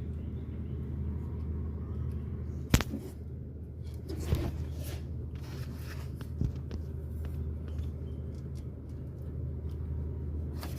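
Car engine running at idle with a steady low hum and a few sharp clicks, the loudest a few seconds in.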